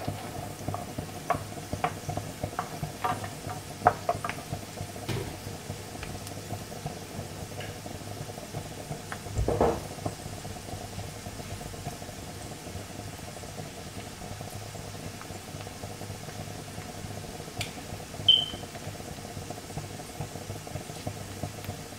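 Chopped onions sizzling steadily in hot oil in a frying pan. A wooden spatula clicks and scrapes against the pan during the first few seconds. There is a louder knock about ten seconds in and a short sharp clink near the end.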